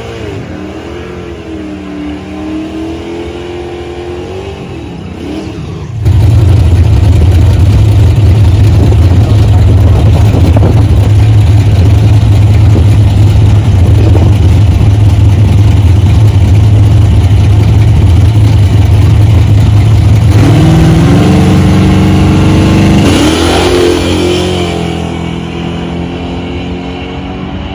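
Drag-racing V8s of a first-generation Pontiac Firebird and a second muscle car at the start line. The engines blip up and down, then at about six seconds a very loud steady engine drone starts. Near the end the revs climb in steps and the cars launch, and the sound falls away as they run down the strip.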